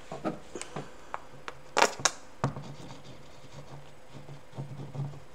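Small plastic buttons and a plastic glue bottle being handled on a tabletop: scattered light clicks and clatter, with a few sharper clicks about two seconds in.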